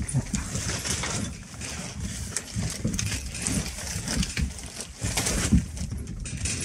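White Swiss Shepherd puppies and adult dogs playing on wooden decking: paws and claws clicking and scuffling on the boards, with short low grunts from the dogs every second or so.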